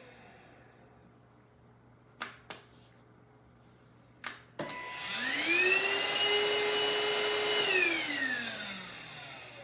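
Cordless stick vacuum: a few clicks of its power button, then the motor spins up with a rising whine, runs for a couple of seconds and winds down again. It cuts out by itself, the fault of a vacuum that will no longer keep running.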